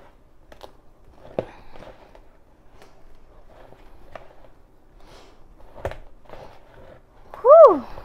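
Hands kneading a stiff flour dough in a plastic bowl: soft, scattered squishing and pressing, with a couple of dull knocks. Near the end there is one short, loud squeak that rises and then falls in pitch.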